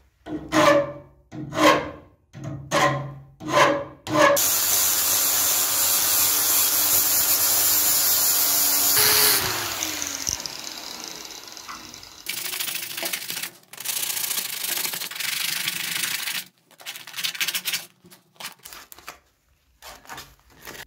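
A hand file rasping on the steel jaws of pliers clamped in a vise, about five strokes. Then a loud steady hiss for about five seconds, which stops with a falling tone as something winds down. Further scraping follows, and near the end short strokes of sandpaper rub on the pliers.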